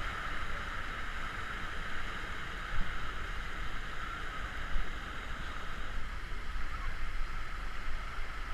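Steady rush of water with a few faint splashes.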